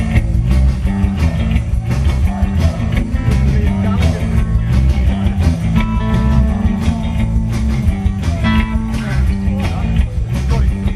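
Live rock band playing loudly with electric guitar, bass guitar and a steady drum beat.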